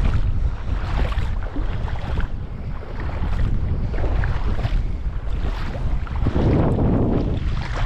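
Wind buffeting the microphone with a steady rumble, with a louder rushing gust about six seconds in.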